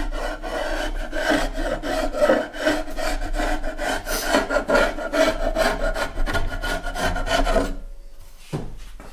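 Old chisel scraping dried glue squeeze-out off a walnut panel: a quick run of scratchy scraping strokes along the glue line, stopping near the end.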